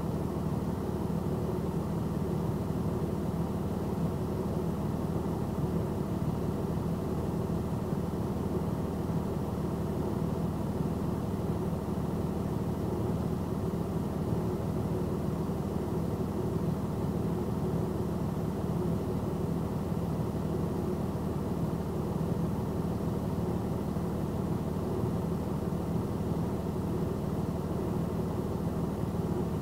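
Truck engine idling steadily, a constant low hum heard from inside the cab.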